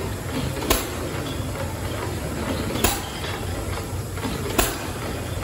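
Stationary horizontal steam engines running: a steady mechanical noise with a sharp snap about every two seconds.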